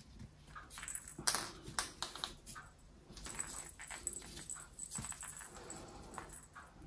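Faint rustling and small irregular clicks of hands working a sewing needle and yarn through a crocheted toy piece, stitching an ear on.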